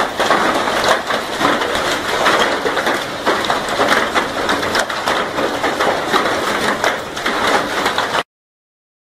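Hail and heavy rain pounding on a corrugated metal roof overhead, a dense, loud clatter of countless small impacts that cuts off suddenly near the end.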